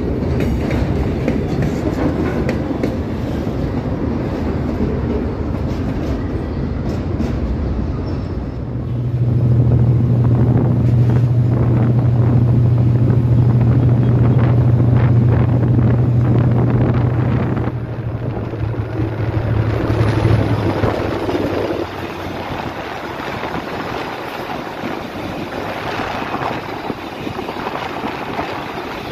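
Freight train of hopper wagons rolling past on the rails. Then the rumble of riding aboard a moving passenger train, with a steady low drone for about twelve seconds from roughly a third of the way in. Near the end another passenger train passes alongside in the opposite direction.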